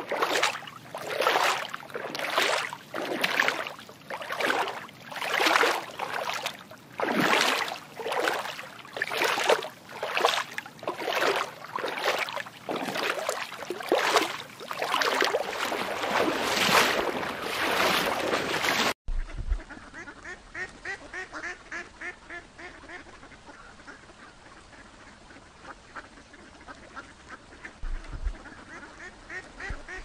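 Waterfowl calling: loud, harsh calls repeated about one and a half times a second. About two-thirds of the way in the sound cuts suddenly to a quieter flock chattering with rapid short calls.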